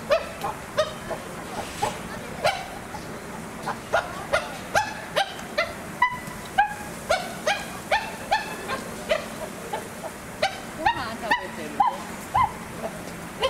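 An animal giving short yelping calls over and over, about two a second, each a quick upward lift in pitch.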